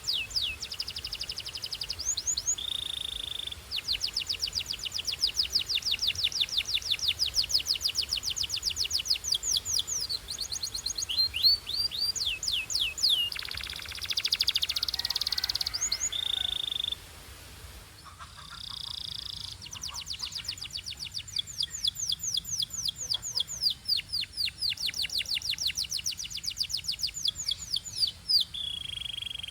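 Domestic canary singing: long, fast rolling trills of rapidly repeated notes, broken by short, steady, pure whistled notes and, about halfway through, a harsher buzzy passage, followed by a brief lull before the trills resume.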